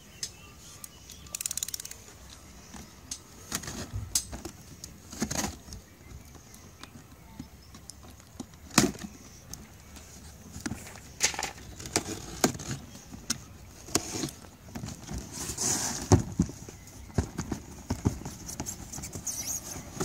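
Large cardboard box being handled and opened: irregular knocks, taps and short scrapes of cardboard against cardboard as the lid and outer sleeve are worked loose.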